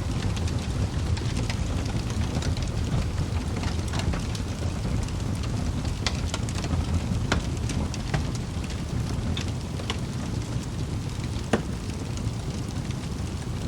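Wood fire burning in a fireplace: a steady low rumble of flames with scattered sharp crackles and pops from the logs, one louder pop late on.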